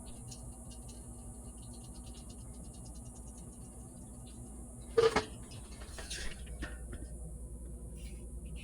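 A sharp rattling clatter about five seconds in, followed by a few lighter knocks, over a steady low hum.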